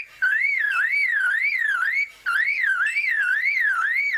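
Superb lyrebird mimicking a car alarm: a whistled tone sweeping up and down, about two and a half sweeps a second. It breaks off briefly near the start and again about halfway through.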